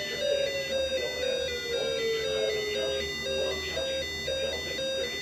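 Electronic beeping tune: a short pattern of pitched beeps repeating a few times a second, with one tone sliding slowly downward through the first few seconds.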